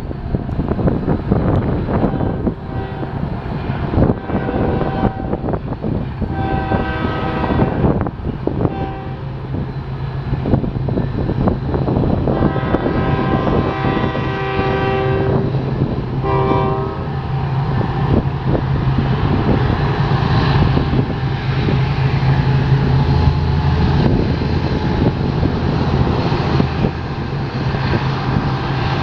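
BNSF freight train's diesel locomotives running with a steady low drone, and the locomotive horn sounding in several separate blasts during roughly the first seventeen seconds.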